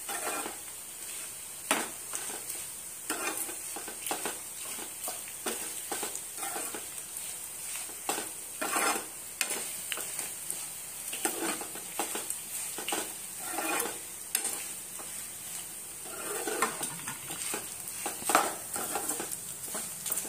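A metal ladle stirring and scraping spinach and gongura leaves in a hot oiled kadai, with irregular clinks and scrapes over a steady frying sizzle. The leaves are being fried until no moisture is left in them.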